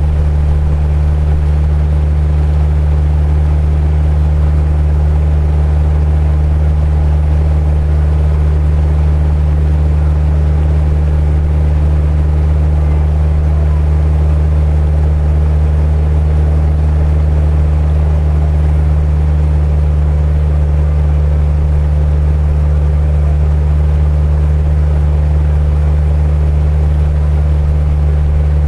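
Boat engine running steadily at cruising speed, a loud unchanging low drone, with water rushing and splashing along the hull.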